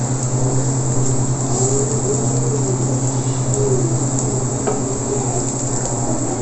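Minced garlic sizzling gently in oil in a stainless steel pan, stirred with a wooden spoon that now and then clicks against the pan, over the steady low hum of an induction cooktop.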